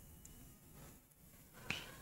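Near silence: faint room tone, with one short soft click about one and a half seconds in.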